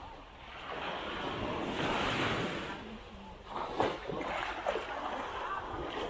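Small waves breaking and washing up on the beach, swelling about two seconds in, with a couple of short knocks later on.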